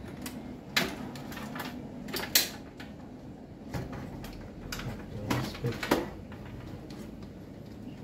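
Clunks, clicks and scrapes of a metal PC power supply being pushed and fitted into a small metal mini PC case by hand. There are a few sharp knocks, the loudest about two and a half seconds in, and a quick run of them near six seconds.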